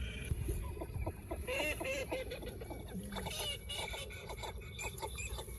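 Waterfowl calling: a run of short, repeated calls throughout.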